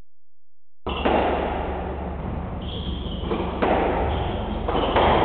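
Silence for about a second, then a squash doubles rally: thuds of the ball striking racquets and the court walls, over a steady low hum.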